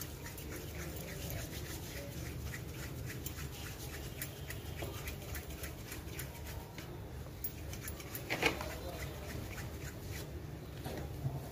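Hands rolling soft sweet dough into balls on a plastic tablecloth: faint rubbing and light taps over a steady low hum, with one sharper knock about eight and a half seconds in.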